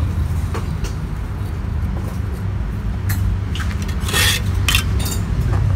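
Short scrapes of a metal tool on wet cement mortar, a few strokes about three to five seconds in, over a steady low mechanical hum.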